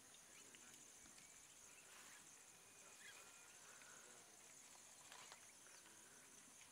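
Faint outdoor ambience: insects trilling steadily in a high, pulsing band, with a few soft bird chirps.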